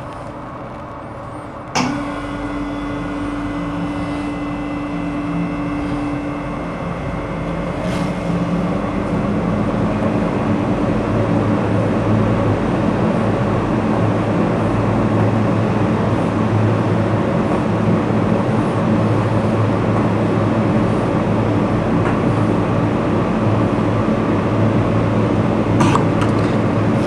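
Soft-serve ice cream machine switching on with a click about two seconds in, then its motor running with a steady hum that grows a little louder, as chocolate soft-serve is pulled from the dispenser.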